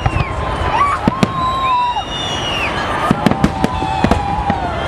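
Fireworks salute: a string of sharp bangs and crackles over a continuous low rumble, with several drawn-out whistling tones that hold steady and then fall away.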